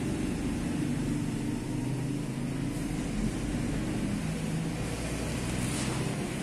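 Yamaha Jog 90 scooter's air-cooled two-stroke engine running steadily with its freshly re-sleeved cylinder.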